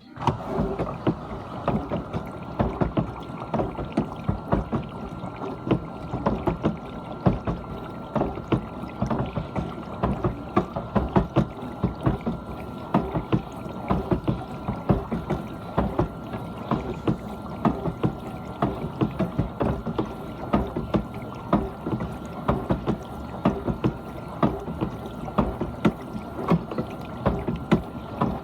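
GE dishwasher in its wash phase: water sprays and splashes irregularly inside the tub over a steady whine from the wash pump motor, all starting suddenly right at the start.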